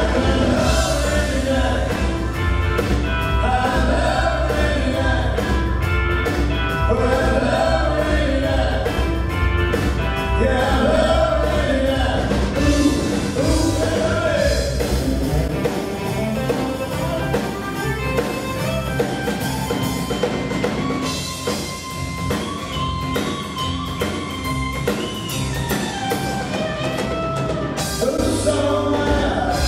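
Live band playing a country-pop song: a male lead vocal with female backing singers over electric guitars, keyboards, bass and drum kit. The bass and drums drop back about halfway through and come back in full near the end.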